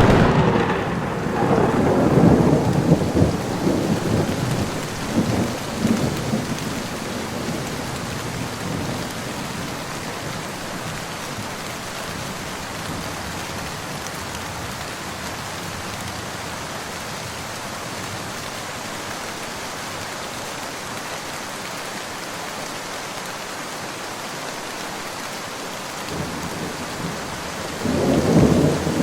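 Steady rain falling with thunder: a long rolling rumble over the first several seconds that dies away, leaving rain alone, then another peal of thunder starting near the end.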